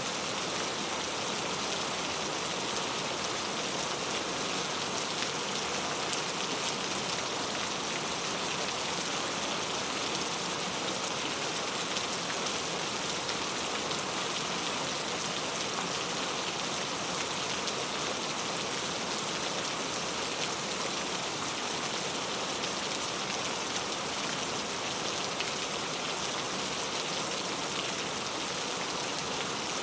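Steady rain ambience: an even hiss of rain falling on a surface, with faint scattered drop ticks.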